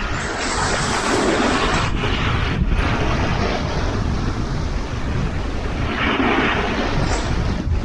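Sea waves washing onto the shore, two surges of surf swelling and fading, over a steady low rumble of wind buffeting the microphone.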